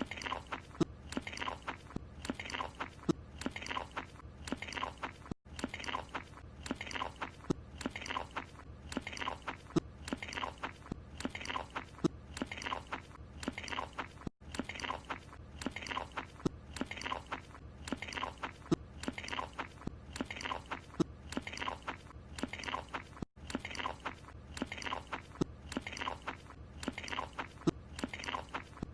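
Cartoon character chewing a croissant, wet crunchy chews at about two a second. It is a short clip looped over and over, with a brief gap at each join about every nine seconds.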